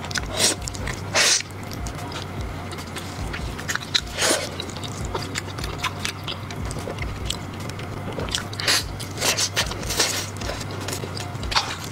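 Close-miked biting and chewing of braised pork knuckle with its soft skin, in irregular bursts and clicks, the loudest about half a second, a second and a quarter, four seconds, and between nine and ten seconds in.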